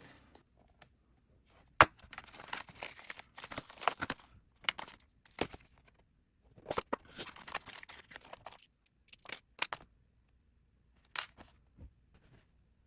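Smartwatch packaging being opened by hand: plastic wrap or film crinkling and tearing in two stretches, with separate sharp clicks and taps from the box in between.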